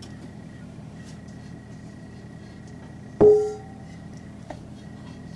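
A bowl knocked once about three seconds in, giving a short clear ring that dies away within half a second, over a steady low hum.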